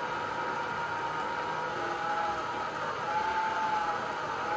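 Electric stand mixer's motor running steadily as its dough hook kneads bread dough, a whine whose pitch dips a little about two to three seconds in.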